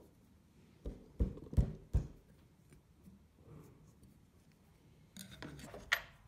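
Steel scribe marking lines into the end grain of a bloodwood block on a cutting mat. Four sharp knocks come close together about a second in, then a short scratchy stretch ends in a click near the end.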